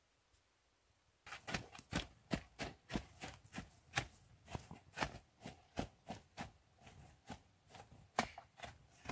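Skis crunching and packing down snow as a person steps in place on them, starting about a second in and going on at roughly two to three crunches a second.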